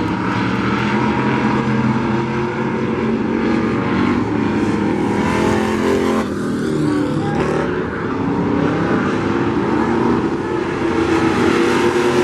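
Several pickup race trucks' engines running hard in a race, overlapping, their pitch rising and falling as they rev through the turns and pass.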